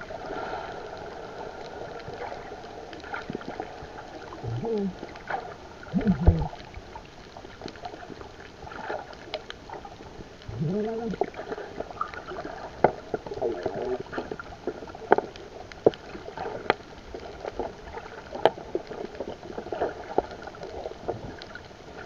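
Underwater sound picked up by a submerged camera: a steady muffled wash with scattered sharp clicks and crackles. A few short gurgling bubble sounds come about 5, 6 and 11 seconds in.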